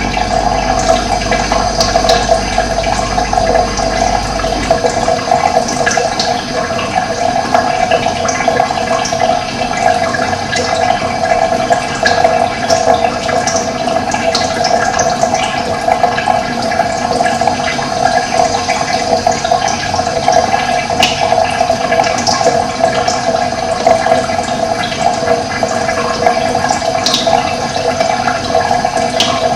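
Steady rush of running water, with a few brief high bird chirps now and then.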